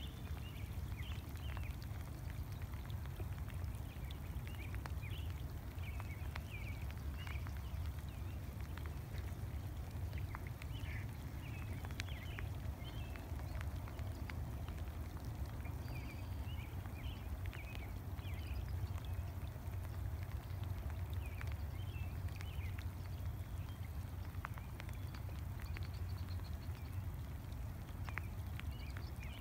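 Light rain falling on a lake, a steady hiss with scattered drop ticks over a constant low rumble, and many short high chirps from swifts twittering as they fly over the water.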